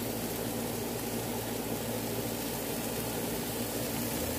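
Burgers, ribs and sausages sizzling on a barbecue grill: a steady hiss.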